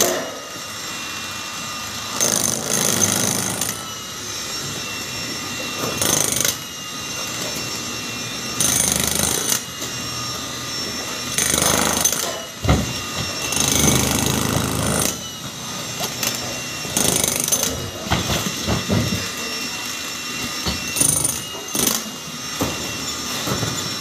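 Handheld jackhammer breaking up a concrete wall, hammering steadily with louder surges every few seconds as the bit bites into the concrete.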